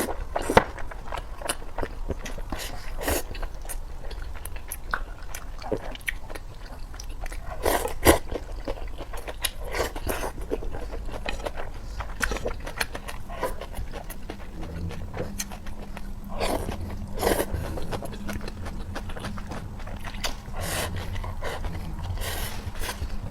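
Someone eating close to the microphone: irregular bites and chewing sounds. A low steady hum comes in about halfway through.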